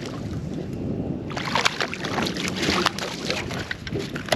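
A hooked fish splashing at the water's surface beside the boat as it is reeled in: a quick run of splashes starts about a second in and goes on until the fish is swung out of the water near the end.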